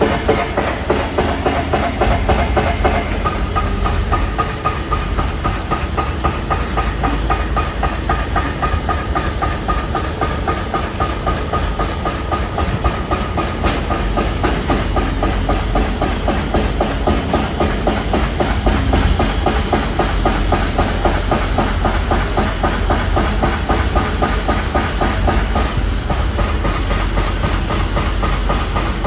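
Construction-site machinery running steadily: a fast, even mechanical clatter with a steady whine over it.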